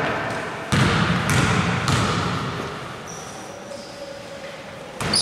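Basketball bounced on a hardwood gym floor by the free-throw shooter, three bounces about a second in, each echoing in the hall. A sudden louder knock comes near the end.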